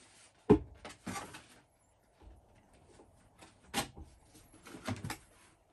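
Cardboard packing being handled in a large cardboard box: a sharp thump about half a second in, a short scrape just after, then a light tap and a knock a few seconds later.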